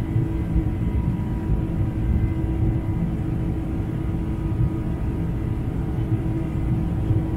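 Boeing 747-400's General Electric CF6-80C2 turbofan engines at climb power after takeoff, heard from a window seat inside the cabin: a steady low rumble with a few faint, steady whining tones above it.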